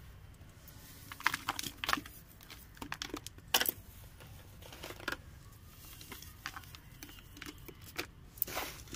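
A hand digging into and pressing crumbly dry soil in plastic flower pots: an uneven series of short crunching rustles and scrapes, a few of them sharper.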